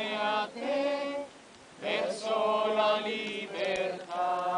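Voices singing a slow religious chant in long, held phrases, with a brief pause about a second and a half in.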